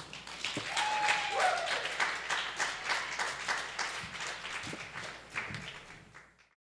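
Audience applauding, with one short falling cry about a second in. The clapping thins out and fades away to silence shortly before the end.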